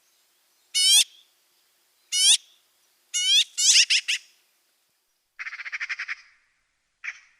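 Magpie calling: several harsh squawks, roughly one a second, then a rapid chattering rattle lasting under a second, and one short call near the end.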